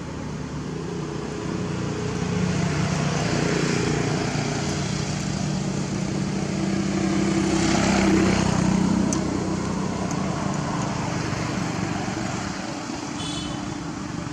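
A motor vehicle's engine passing by, growing louder to a peak about eight seconds in and then fading.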